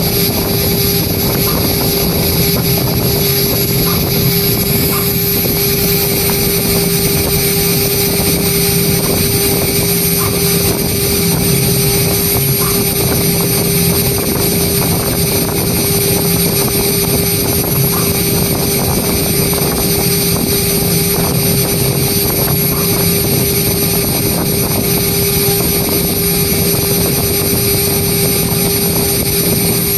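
CNC engraving machine's spindle running at a steady, constant pitch while its fine engraving bit cuts lettering into aluminium composite panel (ACP).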